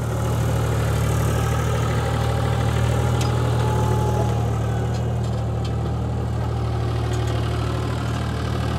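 Mahindra 265 DI tractor's three-cylinder diesel engine running steadily as it pulls a scraper through loose sand.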